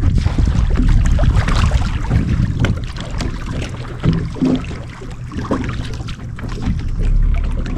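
Wind buffeting the microphone with water sounds around a fishing boat, an uneven low rumble broken by scattered small clicks and knocks.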